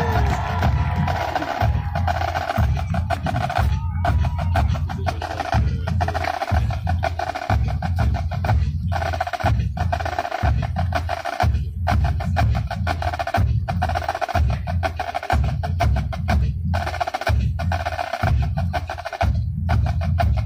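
Marching drumline playing a steady cadence on snare and bass drums: a short rhythmic pattern that repeats about every two seconds, each phrase ending in a brief break.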